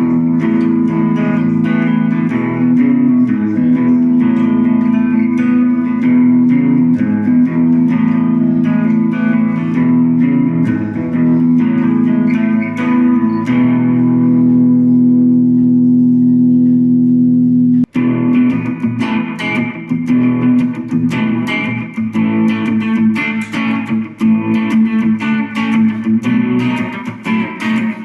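Harley Benton Les Paul-style electric guitar being played: chords and picked lines, with one chord left to ring for a few seconds past the middle. After a brief break, busier picking resumes.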